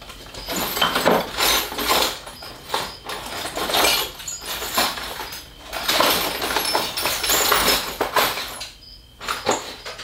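Small metal bike parts (spacers, washers and dust covers) clattering and scraping as they are rummaged through by hand, in an uneven run of clinks that dies down near the end.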